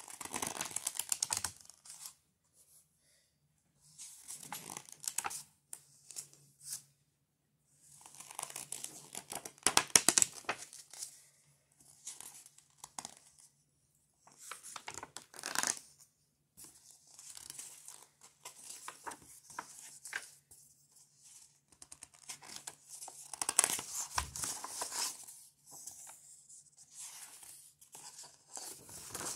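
Paper pages of a picture book being handled and turned, rustling and crinkling in about eight short bouts with brief pauses between.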